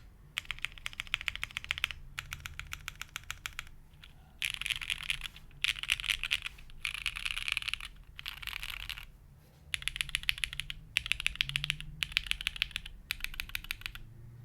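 Fast typing on a custom mechanical keyboard with lubed SP-Star Sacramento switches on a polycarbonate half-plate, under GMK keycaps. The keystrokes come in quick runs of about a second each with brief pauses between them, and stop just before the end.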